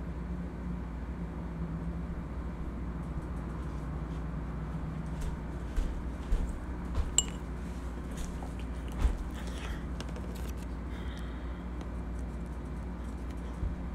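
Steady low room hum with a handful of short clicks and knocks about halfway through, one of them a light ringing clink, and another knock near the end: small household handling noises.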